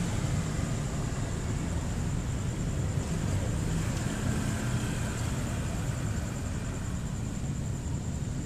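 Steady traffic noise at a railway level crossing: a crowd of motorcycle engines idling while a lit commuter train runs past.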